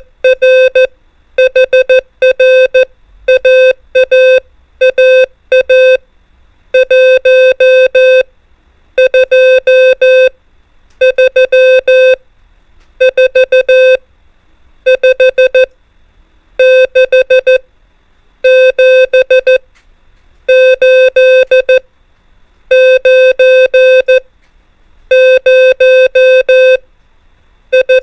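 Morse code (CW) practice tone sending numbers as dots and dashes, one digit per group of keyed beeps, with a short pause after each, about one digit every two seconds. The tone is steady and mid-pitched.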